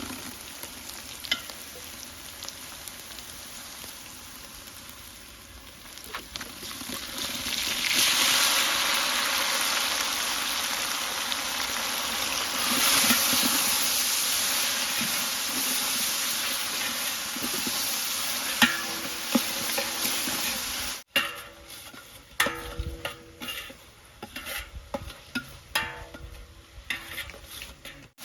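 Tomatoes and small onions frying in hot oil in a pot, sizzling while being stirred. The sizzle grows much louder about seven seconds in and drops off sharply around twenty-one seconds, after which it is softer with scattered stirring knocks.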